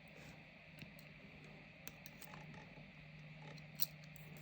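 Faint, scattered small clicks and ticks of lock pins being handled and set into the chambers of a padlock core, one sharper tick near the end, over a faint steady hum.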